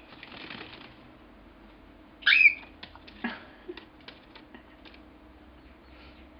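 Baby cockatiel giving one short, shrill call a little over two seconds in, the loudest sound here. A brief rustle comes at the start, and a scatter of light clicks and taps follows the call.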